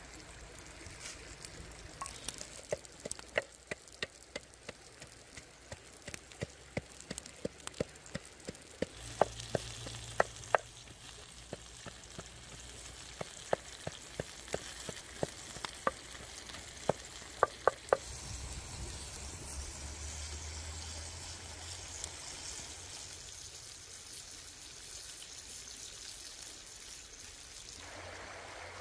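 Food cooking over an open fire: sharp, irregular crackles and pops over a steady sizzling hiss. The pops stop about two-thirds of the way through, leaving only the hiss.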